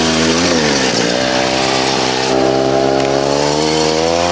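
Two-stroke chainsaw engine driving a home-made drift trike, running at high revs. The revs sag about half a second in, climb back within a second, then hold steady.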